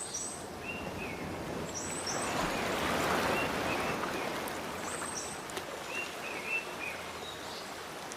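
Layered sound effects playing back: a steady rushing noise that swells about three seconds in, with short high chirps repeating every second or so.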